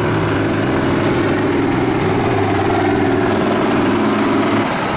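Tractor engine idling steadily, a loud, even low drone with a fast fine flutter.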